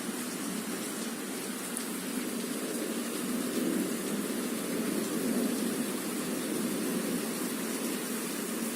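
Rain pouring down steadily in a thunderstorm, an even hiss without breaks.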